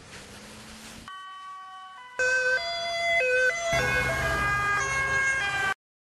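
Dutch emergency vehicles' two-tone sirens, alternating between a high and a low note about every half second, heard in short cut-together snatches. Near the end a vehicle's engine rumble joins several overlapping siren tones, then the sound cuts off abruptly.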